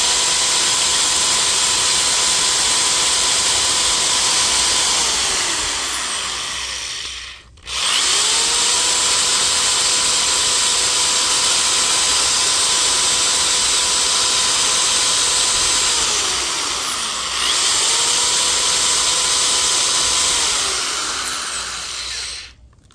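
Corded electric drill boring a pilot hole into a small wooden block, run three times: each run spins up to a steady whine, holds, then winds down, with short breaks about seven and seventeen seconds in.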